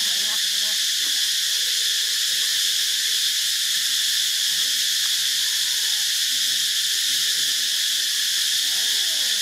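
Steady, unbroken high-pitched drone of a forest insect chorus, with a few faint, brief gliding calls underneath.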